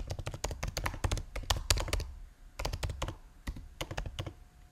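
Typing on a computer keyboard: fast key clicks for about two seconds, a short pause, a second quick run, then a few scattered keystrokes before it stops.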